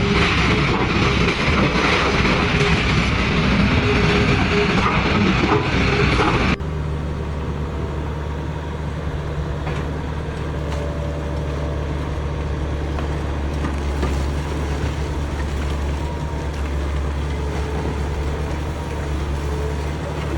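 Loud, dense crunching and rumbling of demolition work for about six and a half seconds, then after an abrupt cut a heavy-machinery diesel engine running steadily with a low, even drone.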